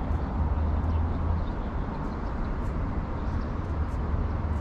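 Steady low rumble of urban outdoor background noise, with a few faint short ticks.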